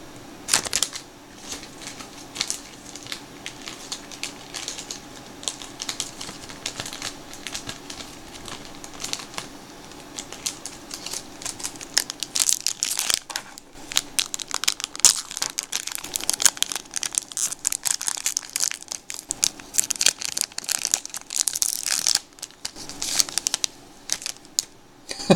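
Shiny trading-card pack wrapper being torn open and crumpled by hand: a long run of crinkling with many sharp crackles, busiest in the second half.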